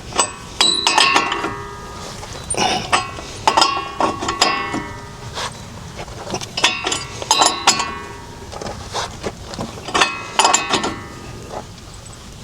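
Hand tools clanking against metal in irregular clusters, each strike ringing briefly, while a rusted wheel hub is worked loose.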